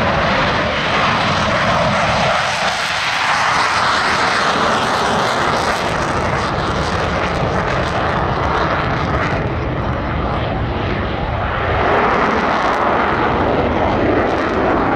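Dassault Rafale fighter's twin M88 jet engines at high thrust as it takes off and climbs away: a loud, steady rushing jet noise that swells slightly about twelve seconds in.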